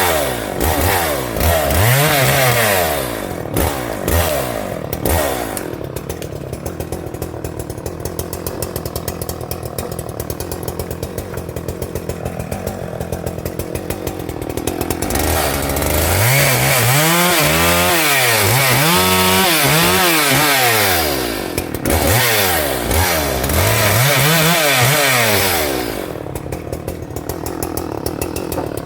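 Husqvarna 394XP 90cc two-stroke chainsaw revving up and dropping back in short bursts as it cuts through small branches, idling in between. It idles for a long stretch in the middle, then revs through several more cuts.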